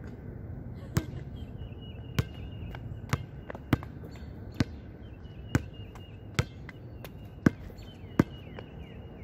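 Basketball bouncing on an outdoor hard court: about nine sharp bounces, unevenly spaced, as the ball comes down from a shot and is dribbled.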